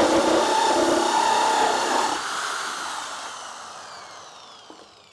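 A corded drill with a 90 mm holesaw is cutting through plywood with a loud, steady grinding. About two seconds in, the cut ends and the motor whine falls away as the drill spins down.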